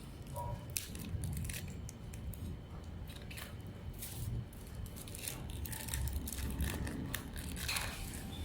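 Irregular small clicks and crinkling handling noises over a steady low rumble.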